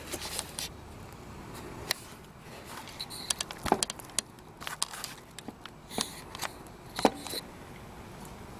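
Scattered light clicks and knocks of handling noise, a few sharper than the rest, as small objects are moved and set down.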